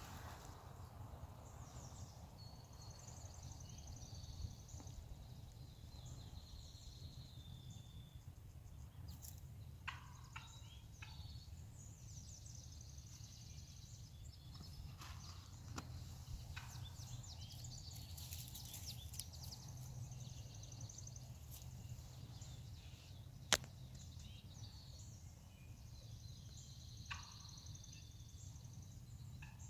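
Small birds singing in high warbling bursts that come and go over a steady low outdoor rumble, with a few short sharp notes and one sharp snap about three-quarters of the way through.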